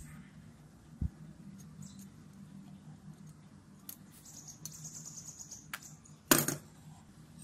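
Small metal parts being handled: a dull tap about a second in, faint clicks and a soft high hiss in the middle, and a sharp knock near the end, over a faint low hum.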